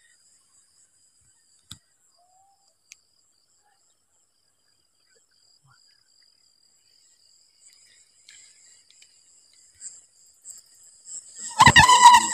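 Crickets trilling faintly and steadily at a high pitch, with two faint clicks about two and three seconds in. Just before the end a sudden loud, high-pitched sound with a clear pitch breaks in.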